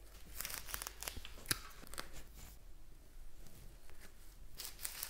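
Leafy black cat pussy willow branches and ivy foliage rustling and crackling as they are bent and tucked into the pot, in irregular bursts with a few sharp snaps.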